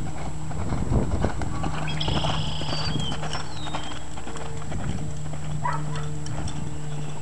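Hoofbeats of an American Quarter Horse mare loping on arena sand, with the heaviest strikes about a second in.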